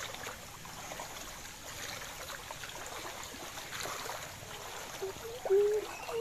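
Floodwater running and trickling, with light scattered splashes. A short voice-like call sounds briefly near the end.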